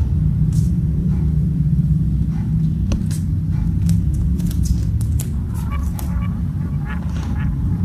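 A steady low rumble underneath light, scattered clicks and scratches: kittens' claws scrabbling on a plastic basket as they wrestle.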